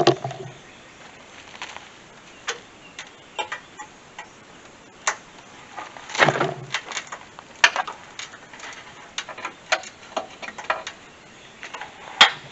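Telescoping magnetic pickup tool tapping and clicking against metal and plastic parts inside a truck's front end while fishing for a dropped 10 mm part. The clicks come at irregular intervals, with a fuller knock about six seconds in and a sharp click near the end.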